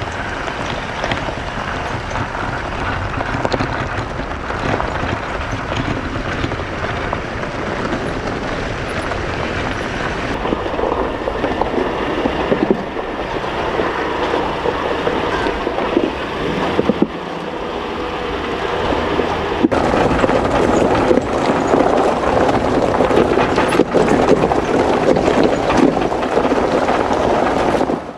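Wind buffeting an exterior-mounted camera microphone over the road noise of a pickup truck driving a rough dirt trail, with a few sharp knocks from bumps.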